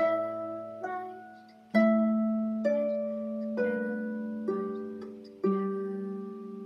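Irish lever harp played slowly with both hands together: seven plucked notes and chords, about one a second, each ringing on, with low bass notes sounding under the melody.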